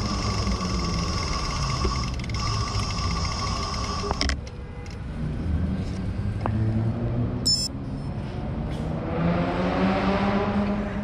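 Wind and road rumble from a bicycle ride, heard on the rider's camera. A steady high whine cuts off about four seconds in, a short bright metallic ring comes about two-thirds of the way through, and the noise swells and fades near the end.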